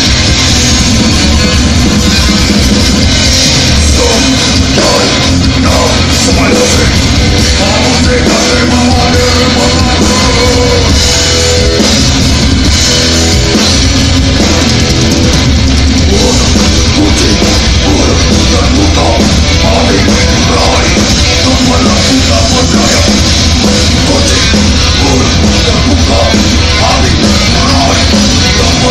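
Thrash metal band playing live over a PA: distorted electric guitars and a drum kit, loud and unbroken.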